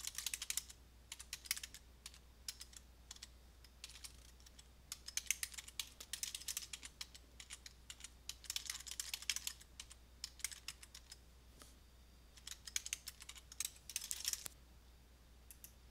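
Typing on a computer keyboard: quick runs of keystrokes in bursts of about a second, with short pauses between them.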